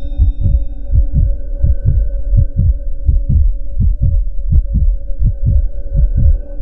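A heartbeat sound effect in a horror soundtrack: steady, fast low thumps in lub-dub pairs over a constant droning hum of held tones.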